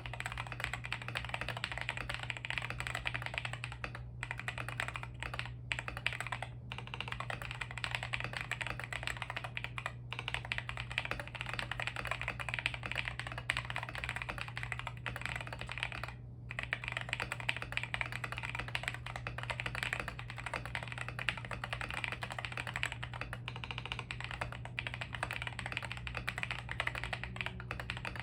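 Continuous fast typing on a 75% mechanical keyboard with tactile MMD Holy Panda switches lubed with Krytox 205g0 and Iceberg XDA PBT keycaps, the case tape-modded and dampened. Dense keystrokes with a few short breaks, over a steady low hum.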